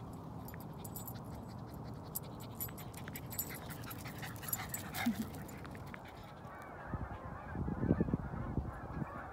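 A dog barking a few times, loudest about eight seconds in, over steady outdoor background noise. Geese begin honking near the end.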